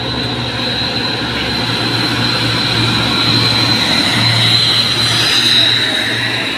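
Diesel trucks and a car going by at close range: engine drone and tyre noise that swell to a peak about five seconds in, then ease off, with a steady high whine behind.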